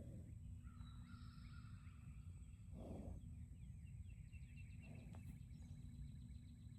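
Faint outdoor ambience: a low rumble of wind on the microphone, with distant birds chirping.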